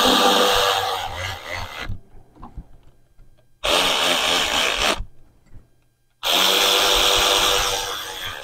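A handheld power tool, a power ratchet or driver, runs in three bursts: two long ones about two to three seconds each, with a shorter one of about a second and a half between them. It is driving the timing-cover bolts home on the 2008 VW GTI's engine.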